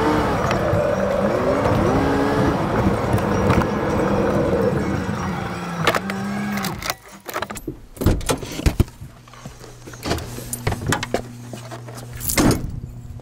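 A car driving, its engine note rising and falling, until about seven seconds in. After that come scattered clicks and rattles over a steady low hum.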